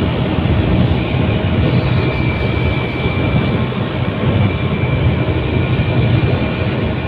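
Steady wind rush on the microphone mixed with a motorbike engine running at cruising speed while riding along a road.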